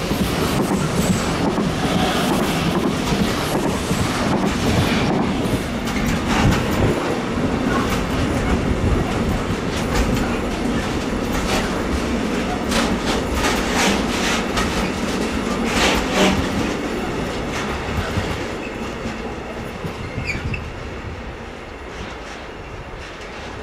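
Long freight train rolling past, its wagon wheels clicking over rail joints above a steady rumble; the sound dies away over the last few seconds as the train moves off.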